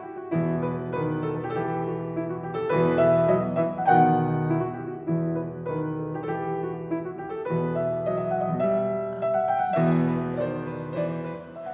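Soft piano background music, slow sustained chords changing every couple of seconds.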